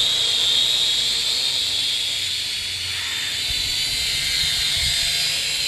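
Small toy quadcopter drone's electric motors and propellers running at speed as it lifts off the grass and hovers low: a steady high whine with an airy hiss.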